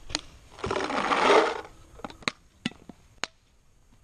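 Sharp pops of paintball markers firing during a game, five or so at irregular intervals, with a loud rustling burst of about a second near the start.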